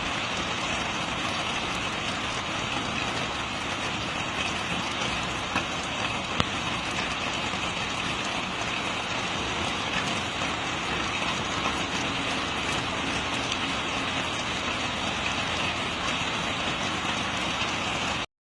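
Heavy rain falling steadily: a dense, even hiss with a few sharper drop hits, cutting off abruptly near the end.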